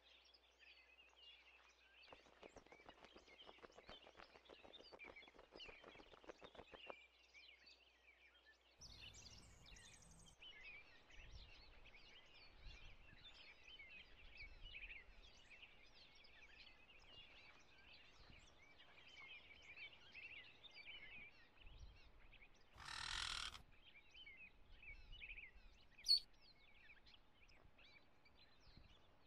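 Faint outdoor ambience of small birds chirping, with a brief louder rush of noise about three-quarters of the way through and a sharp click near the end.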